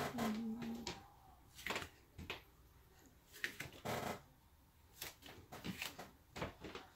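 Irregular clicks, taps and rustles of things being handled during kitchen preparation, a dozen or so scattered short sounds with pauses between them.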